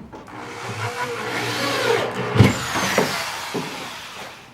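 Power tool running while fastening a ceiling panel, building up over about two seconds, with a sharp knock about two and a half seconds in before it tapers off.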